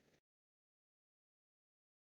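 Silence: faint room tone for a moment, then digital silence where the recording ends.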